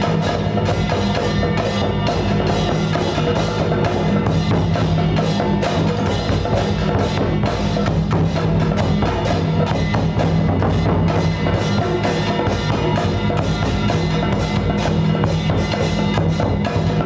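Percussion music with dense, rapid strokes over steady low tones.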